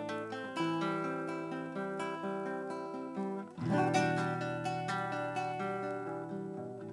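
Acoustic guitar playing an instrumental piece, picked notes ringing over held bass notes. A dip is followed about halfway through by a louder, fuller chord with a deep bass note.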